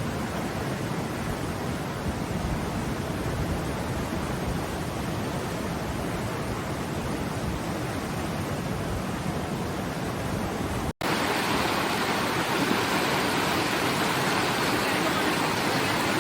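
River water flowing, a steady rushing. About eleven seconds in it cuts out for an instant and comes back a little louder and brighter.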